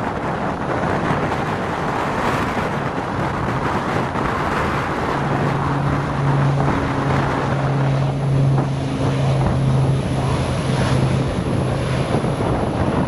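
Aircraft engine noise with wind buffeting the microphone; a steady low hum joins about five seconds in and fades out near the end.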